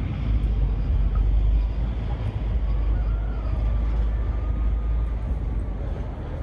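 Wind buffeting the microphone: a loud, steady low rumble that sets in suddenly just before and holds throughout.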